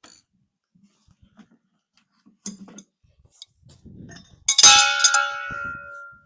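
A light metal knock, then a loud clang of struck steel that rings on with several clear tones and fades out over about a second and a half.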